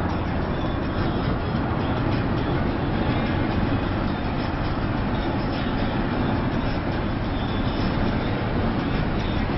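Steady engine and road noise heard from inside the cabin of a car driving along at speed.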